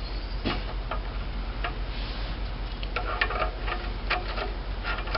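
Metal hand tools clicking and clinking as pliers are picked up and worked, a scatter of sharp clicks, a few of them ringing briefly, over a steady low hum.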